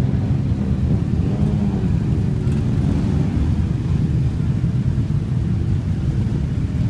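Many motorcycle engines running together in a steady low rumble, with one bike's engine rising and falling in pitch between about one and three seconds in.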